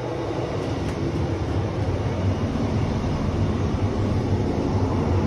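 A train rumbling, growing steadily louder as it draws near, with a steady low hum under a wide rushing noise.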